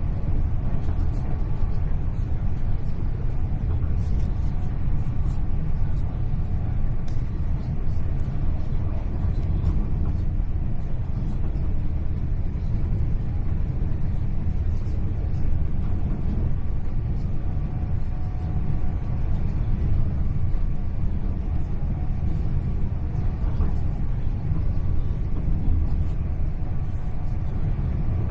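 Steady running noise inside the passenger saloon of a GWR Class 800 Intercity Express Train travelling at speed: a constant low rumble of wheels on rails, with a faint steady whine and light scattered ticks.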